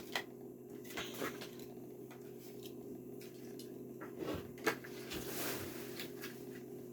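Faint handling noises of a toy car's blister packaging being opened: a few light clicks and plastic-and-card rustles, over a steady low hum.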